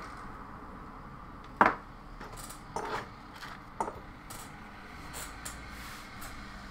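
Hard objects knocking and clinking on a wooden workbench as a circuit board with wires is handled and laid down: one sharp knock about a second and a half in, two more about a second apart, then several light ticks.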